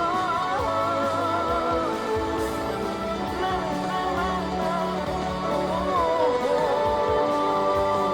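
Background music: a Hindi pop song with guitar accompaniment and a steady beat, a voice singing the melody.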